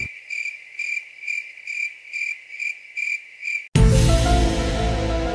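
A cricket chirping sound effect: a high, even chirp repeating about twice a second. It cuts off suddenly about three and a half seconds in, when louder music with sustained chords starts.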